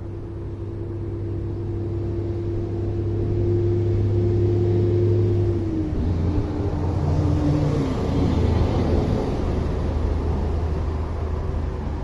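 A steady mechanical hum that grows louder over the first few seconds, then drops in pitch in two steps about halfway through.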